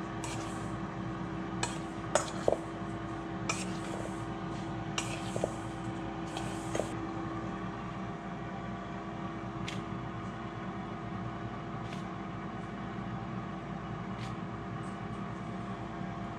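Fish fillets being tossed by hand in dry fish-fry breading in a stainless steel bowl. Several light clinks and knocks against the bowl and short rustles come in the first seven seconds, with only a few faint ticks after that, all over a steady hum.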